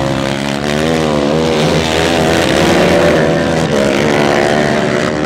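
Racing ATV engines revving, their pitch wavering up and down with the throttle as the quads run the dirt track, getting a little louder around the middle.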